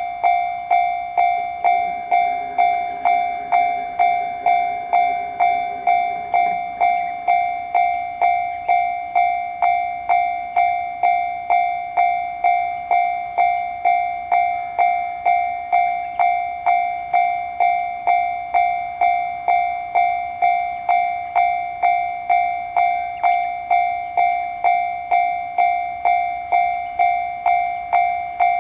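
Japanese railroad crossing warning bell ringing its repeated "kan-kan" strikes, about three every two seconds, a bright high ring that fades between strikes: the crossing is closed for an approaching train.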